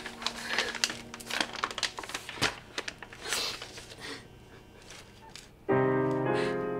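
Soft piano score with irregular rustling, crinkling noises over it for the first few seconds, then a louder piano chord entering near the end.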